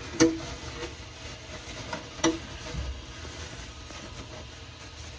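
An activated carbon filter being handled and pushed into its slot inside a 3D printer's enclosure: two sharp plastic knocks about two seconds apart, with light scraping and rustling between them.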